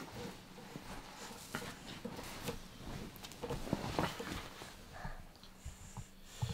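Faint rustling and scattered soft clicks and light knocks of people moving in a quiet room.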